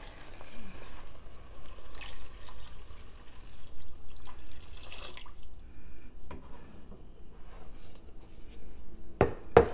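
Water pouring steadily from a plastic pitcher into a cooking pot of onion sauce for about five seconds, then stopping; a few light ticks follow and two sharp knocks come near the end.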